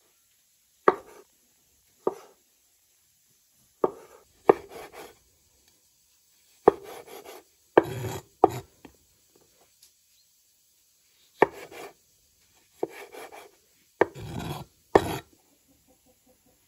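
Meat cleaver slicing green olives into rings on a wooden cutting board: about a dozen sharp knocks of the blade on the board at uneven intervals, several followed by a short scraping sound.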